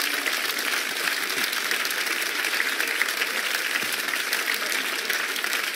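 Large audience applauding: a steady, dense clapping of many hands.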